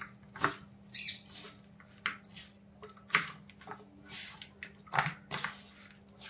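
Hands tossing and squeezing sliced capsicum, onion and dry spice powders in a metal mixing bowl: soft, irregular rustling strokes about twice a second.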